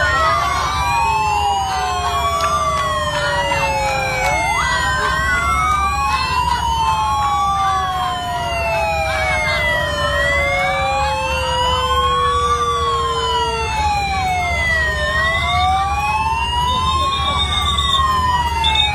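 Several sirens of a police escort convoy wailing at once, their tones overlapping as they sweep up and down. One siren twice jumps up sharply and then slides slowly down over several seconds. Beneath them runs a steady low rumble.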